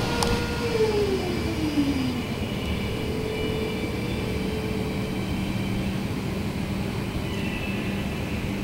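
Steady mechanical drone with a low hum. Early on, a tone slides down in pitch over about a second.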